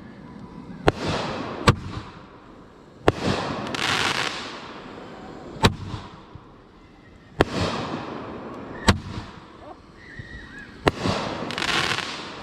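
Fireworks going off: sharp bangs every one to two seconds, several of them followed by a swelling crackling hiss that fades out.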